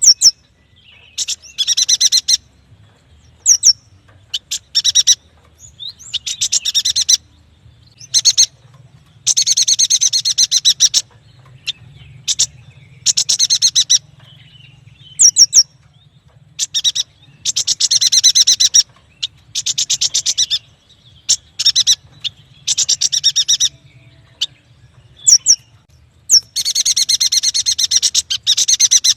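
Yuhina singing: a repeated run of fast, chattering trills lasting about one to two seconds each, separated by short pauses and broken by a few brief, sharp whistled notes.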